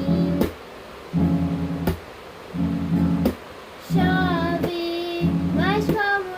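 Acoustic guitar strummed in short blocks of chords with brief gaps between them; about four seconds in, a sung voice comes in over the guitar.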